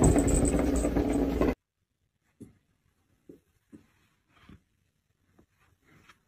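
A plastic ball rolling round a circular ball-track toy, a loud steady rattle that cuts off suddenly about a second and a half in, followed by a few faint scattered ticks and taps.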